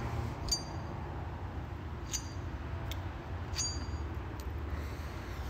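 About four light clinks with a short ring as old drive-shaft bushings are worked off the hub studs by hand, over a steady low hum.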